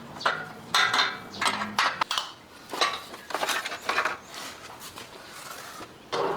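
Metal tools and parts clinking and knocking together at an irregular pace.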